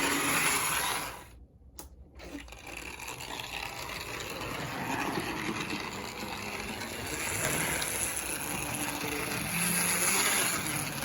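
Vintage Aristo-Craft Camelback 0-4-0 model locomotive's electric motor and gears whirring as it runs on the track. The sound cuts out for about a second near the start, then runs again. The drive is still working in freshly applied grease after the restoration.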